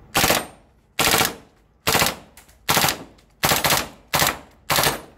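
Gas-powered airsoft M4 carbine firing on full auto in about seven short bursts, roughly one a second, each a rapid clatter of shots with a high rate of fire.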